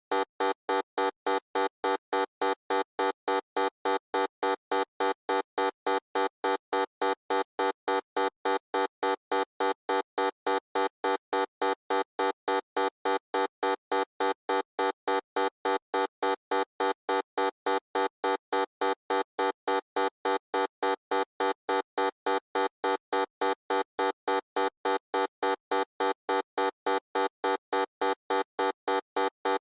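Loud electronic buzzer beeping: one harsh, buzzy tone switching on and off in a fast, perfectly even rhythm that never changes.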